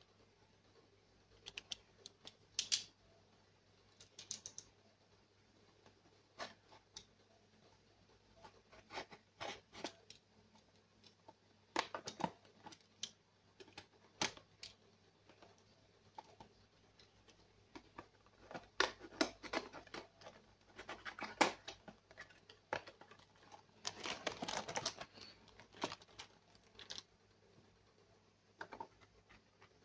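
Irregular clicks, taps and short rustles of hands handling small plastic toy parts and packaging, with a longer rustling stretch about two thirds of the way through.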